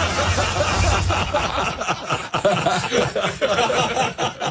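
People laughing and chuckling at a joke, several voices overlapping.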